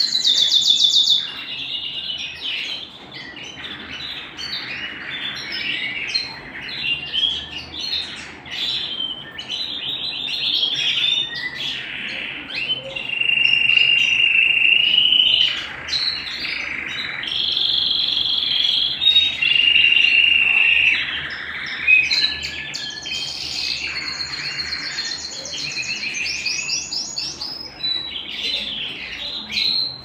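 Domestic canary singing a long, unbroken song: fast high trills alternating with held, rolling notes, with a quicker burst of trills about two-thirds of the way through.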